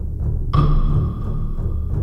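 Soundtrack music with a heavy low pulse; a held high note comes in about half a second in and fades away.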